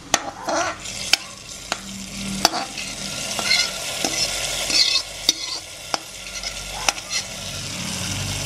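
Metal spoon scraping and clinking against an aluminium kadai as hot tempering of mustard seeds, dried red chillies, shallots, curry leaves and fried coconut is tipped into the curry, with a sizzle as the hot oil hits it. The clinks come sharp and irregular, a dozen or so, over the hiss.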